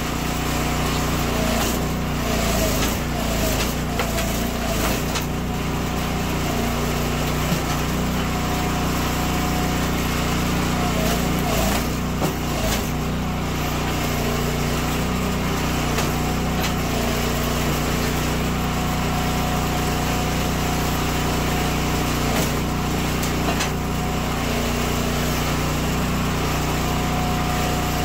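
Firewood processor's engine running steadily at a constant pitch as wood is split, with a few short wooden knocks and clatters scattered through.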